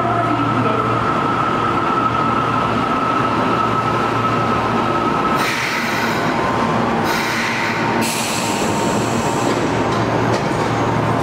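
An Osaka Metro Midosuji Line subway train pulls into the station and slows to a stop, with a steady high whine until about halfway through. Three bursts of hiss follow as it stops.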